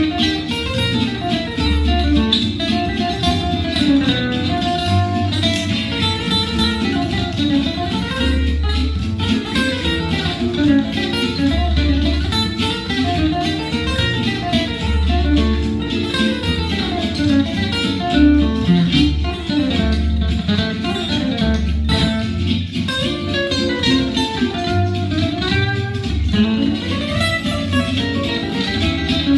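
Gypsy jazz guitar (Selmer-Maccaferri style, oval soundhole) playing fast picked melodic runs that climb and fall, over sustained low bass notes.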